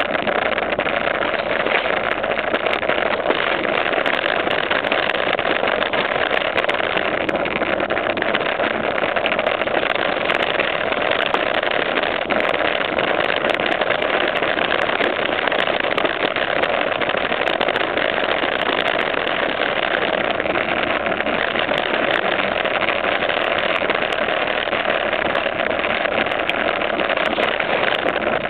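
Steady rushing noise of a BMX bike rolling along the concrete top of a flood wall, unbroken and even throughout.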